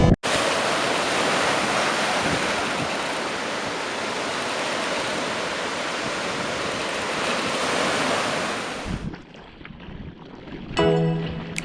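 Ocean surf from a typhoon swell: a steady wash of breaking waves with wind on the microphone. It drops to a quieter wash about nine seconds in, and music starts near the end.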